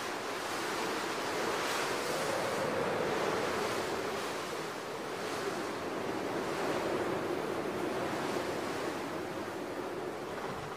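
Blizzard wind blowing hard over snow and rock, a continuous rushing that swells in gusts and eases again.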